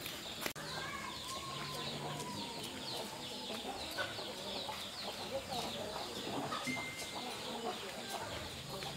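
Chickens clucking, over a steady background of many short, quick bird chirps.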